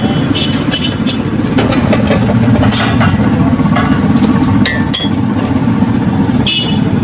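Steady low mechanical rumble under scattered clinks and taps of steel utensils: a ladle, pot lids and bowls being handled, a few of the clinks ringing briefly.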